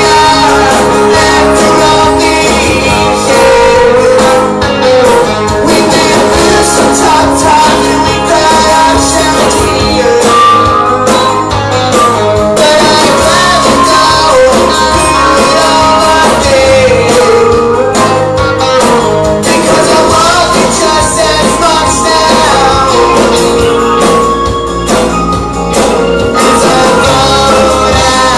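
Rock band playing live and loud: strummed acoustic and electric guitars over drums, with a man singing lead into a microphone.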